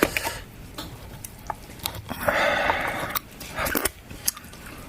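A person eating: chewing, with small sharp clicks of utensils against a dish. There is a brief noisy rustle or scrape a little past two seconds in, and a shorter one near the end.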